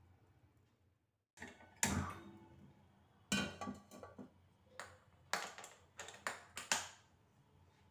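Aluminium pot set down and shifted on a gas stove's metal burner grate: a series of sharp metallic clanks, each ringing briefly. They start about a second and a half in, and there are several more in the second half.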